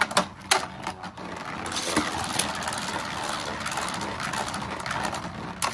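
Two Beyblade Burst spinning tops, a Hasbro Quad Drive Vanish Fafnir and a Lord Spriggan, whirring on a plastic stadium floor. There are a few sharp plastic clacks in the first second, then a steady scraping whir, and another clack near the end.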